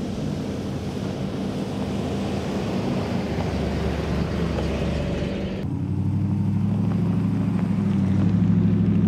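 Off-road vehicles driving past on a dirt and gravel road, engines running under tyre and road noise. First a lifted 4x4 van goes by with a rough, noisy sound. About five and a half seconds in, the sound switches suddenly to a Ram Rebel pickup passing with a steadier engine note that grows louder.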